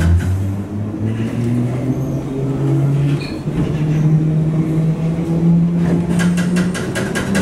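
A Bakerloo line train, a 1972 Stock Tube train, pulling away. Its traction motor whine rises in pitch in steps as the train gathers speed, and near the end comes a quick run of evenly spaced clicks from the running gear.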